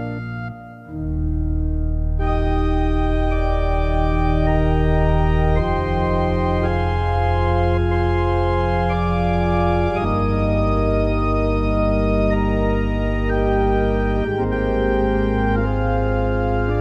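Organ playing sustained chords over deep held pedal bass notes, with a melody line on top. There is a brief break about half a second in before the next phrase starts, and the pedal note changes a few times.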